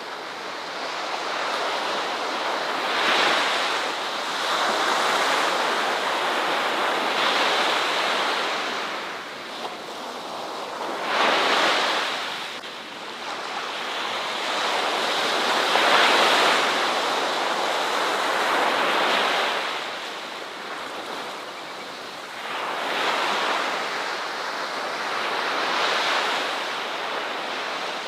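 Ocean waves breaking and washing ashore, a continuous rush of surf that swells and ebbs, with stronger breakers about 3, 11 and 16 seconds in.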